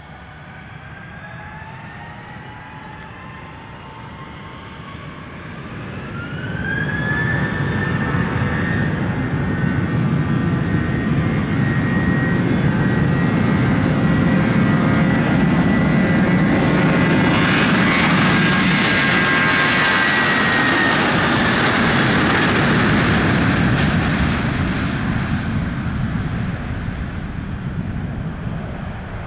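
Airbus A321-231 jet airliner's twin IAE V2500 turbofans spooling up for takeoff: a rising whine that climbs sharply about six seconds in, then loud steady jet engine noise with a high whine over it. The noise fades near the end as the aircraft moves away.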